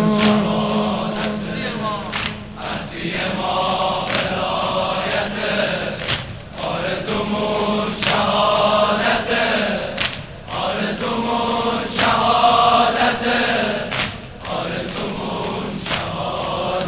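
A group of men chanting a Persian mourning song (nowheh) in chorus, with sharp beats about once a second from rhythmic chest-beating (sineh-zani).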